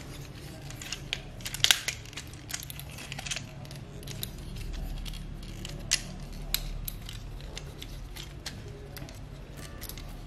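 Plastic parts and joints of an Optimus Prime transforming robot toy clicking and knocking as it is transformed by hand: irregular sharp clicks, the loudest about a second and a half in and again near six seconds.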